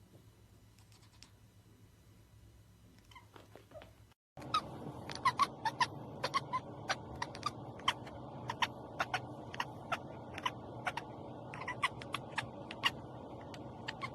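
Cat chattering at birds: many short, sharp clicking chirps in quick irregular runs, louder after a cut about four seconds in. Before the cut there are only a few faint clicks.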